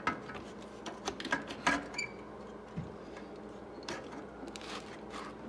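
Scattered light clicks and metallic taps of Honda 70 engine parts being handled and worked loose by hand during a top-end teardown, over a faint steady hum.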